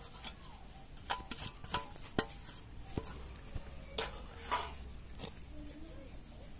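Steel bowl knocking against a metal mixing basin to empty out turmeric powder: about nine ringing metallic clinks, spaced irregularly over some four seconds. Faint bird chirps near the end.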